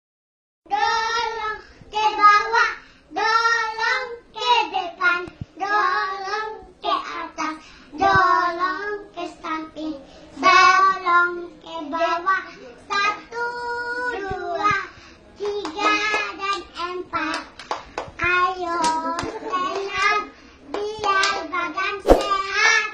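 Young children singing a song together without accompaniment, with a few sharp hand claps along the way.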